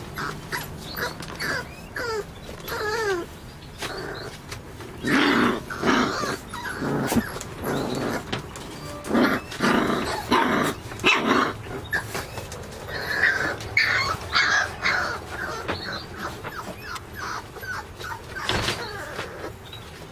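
A puppy at play, yipping and whining in short squeaky cries, then giving rougher little barks and growls bunched in the middle, with one sharp bark near the end.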